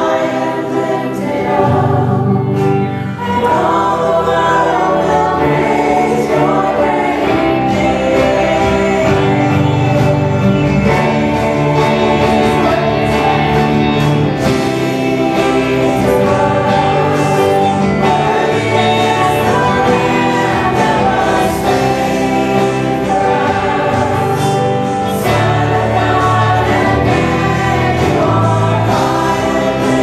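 Church praise team singing a worship song into microphones, several voices together over instrumental accompaniment.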